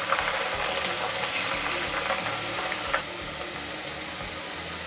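Besan-coated okra pieces frying in hot oil on a high flame: a steady sizzle, with a couple of brief clicks near the start and about three seconds in.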